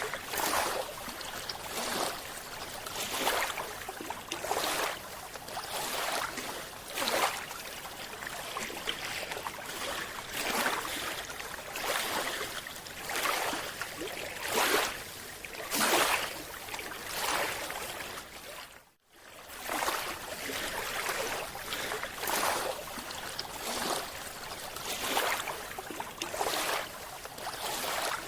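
Rushing water rising and falling in repeated surges about every second and a half, with a brief dropout about two-thirds of the way through.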